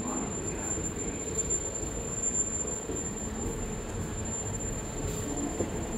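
Steady mechanical rumble of a London Underground station, with a thin high-pitched whine held throughout.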